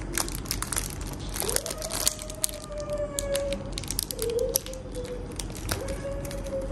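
Clear plastic packaging crinkling and woven rattan napkin rings clicking and rustling against each other as they are handled, in many small sharp clicks. A faint held tone sounds behind it three times, each lasting about a second or two.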